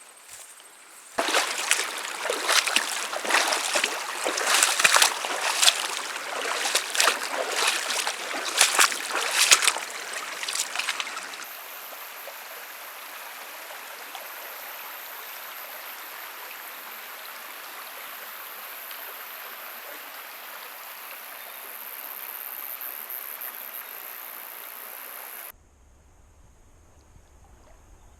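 River water: about a second in, loud irregular splashing and sloshing, like legs wading through a river, for about ten seconds. Then a steady rush of flowing river water, which cuts off near the end.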